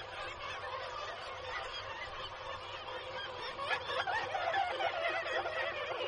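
Nesting colony of black-legged kittiwakes calling over one another in a dense, continuous chorus of overlapping cries, louder and busier from about four seconds in.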